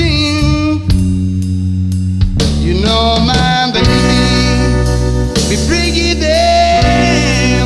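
A blues-rock song: a singer over electric guitar, bass and drums.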